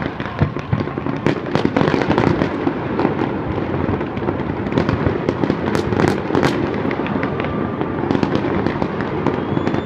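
Fireworks display: a dense run of irregular bangs and crackles, several a second, over a continuous rumble of bursts.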